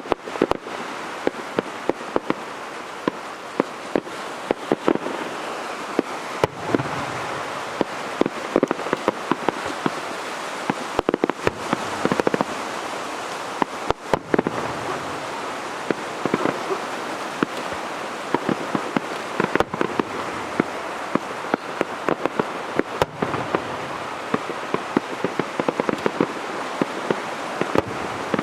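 Fireworks display: a dense, continuous barrage of sharp bangs and crackling pops over a steady hiss of bursting shells.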